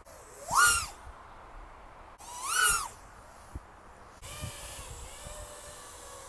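Emax Hawk Apex 3.5-inch FPV racing quad's ECO II 2004 3000KV brushless motors and propellers whining in flight, twice swelling loud with pitch rising then falling as the throttle is punched and let off. From about four seconds in there is a steadier, lower and quieter whine.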